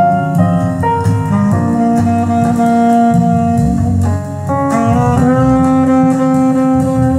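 Instrumental music with long held melody notes over a steady bass line, played from CD through a Kenwood R-SE7 integrated amplifier and its loudspeakers.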